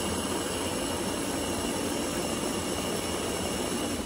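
Ninja blender motor running steadily under load, blending a thick batter of oats, eggs and almond milk for banana oat pancakes.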